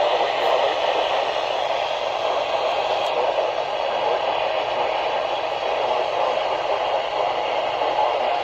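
Steady static hiss from a weather-band radio receiver tuned to a weak, distant NOAA Weather Radio frequency.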